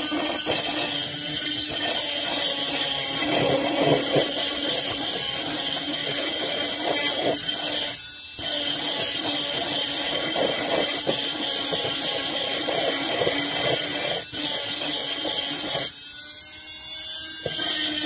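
Oscillating multi-tool buzzing steadily as its triangular grinding pad scrubs across rusty steel, a high-pitched drone with a harsh scraping hiss. The grinding briefly eases twice, about eight seconds in and again near the end.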